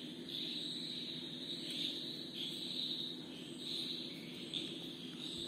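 Insects trilling steadily at a high pitch, swelling and easing every second or so, over a low steady hum.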